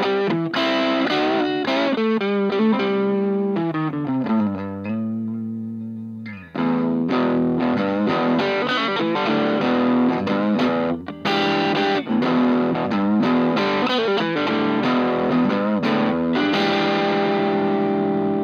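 Electric guitar played through a 2-watt Little Rebel amp kit into a Jensen CR8 speaker, with the kit's LED clipping circuit still in place. The builder finds its tone a bit harsh, clipping too soon. It plays chords and quick note runs, with a single held low note about five seconds in, and ends on a long ringing chord.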